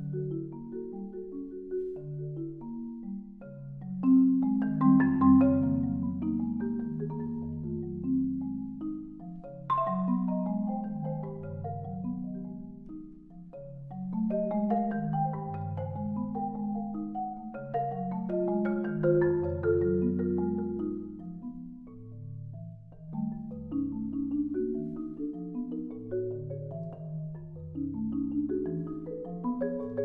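Solo marimba played with four mallets: dense, fast runs of overlapping notes, with the low bars ringing longest. It gets suddenly louder about four seconds in, with a sharp accent near ten seconds, and eases off twice before building again near the end.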